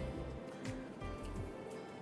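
Quiet background music: sustained tones over a pulsing bass beat.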